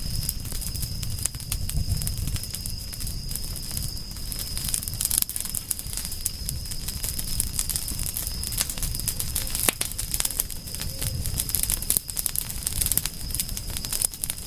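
Fire crackling: many small sharp irregular pops and snaps over a steady low rumble.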